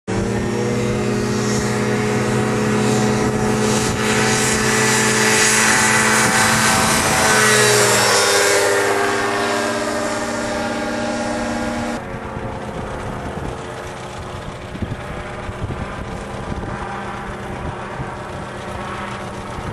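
Shadow microlight's two-stroke engine and propeller droning, growing louder and then dropping in pitch as the aircraft passes about eight seconds in. About twelve seconds in the sound falls suddenly to a quieter, duller drone with gusty rumbles.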